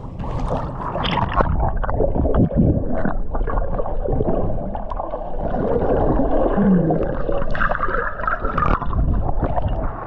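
Seawater sloshing and gurgling around a camera riding in the waves at the surface, ducking under and coming back up, with many sudden splashy spikes.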